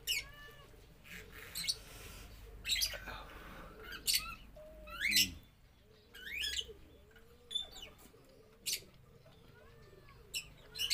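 Birds chirping: short, high calls that sweep up or arch in pitch, repeated every second or two, with a sharp click near the end.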